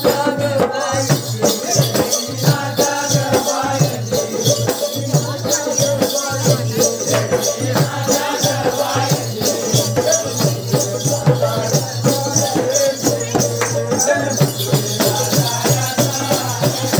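Folk percussion: hand-held frame drums and a two-headed barrel drum beaten together in a fast, steady rhythm, with a bright jingling rattle over the top.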